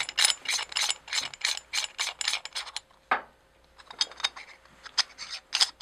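Threaded metal sections of a Griffin Armament Revolution 9mm suppressor being twisted together by hand: a quick run of light clicks, about six a second, that pauses about three seconds in and then goes on more sparsely.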